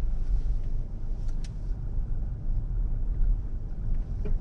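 Car engine and tyre rumble heard from inside the cabin as the car rolls slowly, a steady low drone with a couple of faint ticks about a second and a half in.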